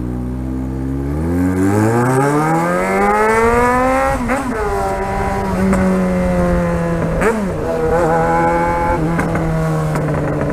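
Yamaha XJ6 inline-four motorcycle engine with a de-baffled exhaust accelerating under way: the revs climb steadily for about four seconds, dip briefly at a gear change, then hold steady, with another short shift about seven seconds in.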